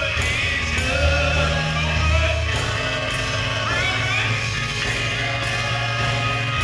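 A gospel vocal group singing together with keyboard accompaniment, over a strong low bass line that moves from note to note.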